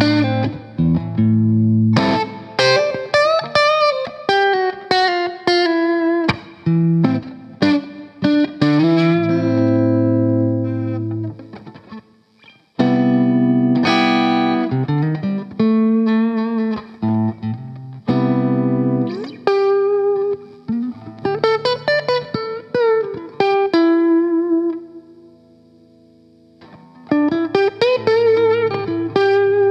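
Electric guitar played through a Boss Blues Driver BD-2 overdrive pedal: ringing chords and single-note phrases with a bright, driven edge, broken by two short pauses.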